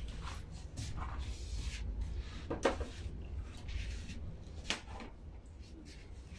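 A small knife peeling a mango by hand: a few short, soft scrapes and light clicks at irregular intervals, over a low steady hum.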